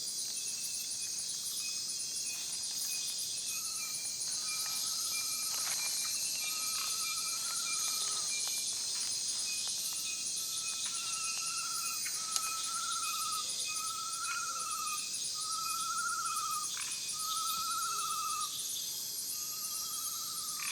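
Amazon rainforest ambience: a dense, steady high-pitched chorus of insects. From about four seconds in, a warbling call repeats, each note under a second long, roughly every second and a half.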